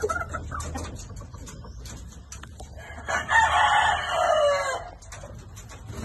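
A rooster crows once, starting about three seconds in and lasting nearly two seconds, its pitch dropping at the end; quieter chicken clucks come before it.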